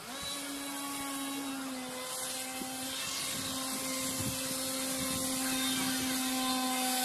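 RC model fighter jet's motor whining steadily in flight, its pitch stepping down slightly about two seconds in and growing louder toward the end as the plane comes closer.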